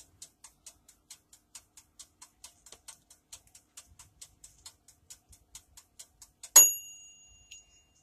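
Dash mini toaster oven's mechanical wind-up timer ticking rapidly and evenly, about four ticks a second, then its bell dings once about six and a half seconds in and rings briefly: the timer has run out and the cooking time is up.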